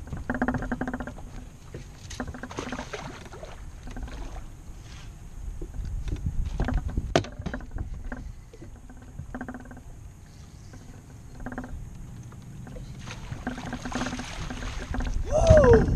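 A hooked bass fought to the side of a boat: wind rumble and short repeated hums, then loud splashing near the end as the fish thrashes at the boatside.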